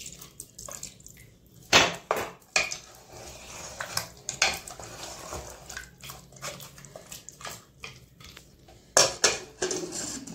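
Wooden spoon stirring mutton in water and yogurt inside a pressure cooker: wet stirring with scattered knocks and scrapes of the spoon against the pot's metal sides. The loudest knocks come about two seconds in and again about nine seconds in.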